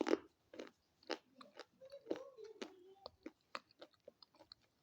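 Close-up biting and chewing of a crunchy stick: a rapid, irregular series of sharp crunches and snaps, loudest right at the start.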